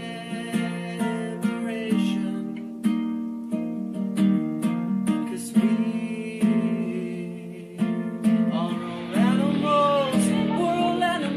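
A song with strummed acoustic guitar; a singing voice comes in again near the end.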